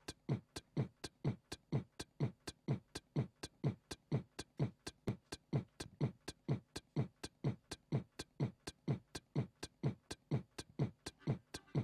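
Beatboxing into a microphone: a steady, even beat of deep thumps that each drop in pitch, mixed with sharp clicks, about three and a half beats a second.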